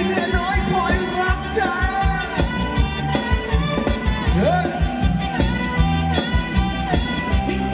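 Live band playing upbeat Thai ramwong dance music: a steady drum-kit and bass beat under a gliding lead melody line.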